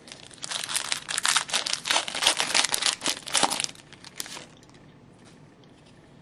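Plastic wrapper of a hockey card pack being torn open and crinkled, a dense run of crackling for about three seconds that tails off into a few small rustles.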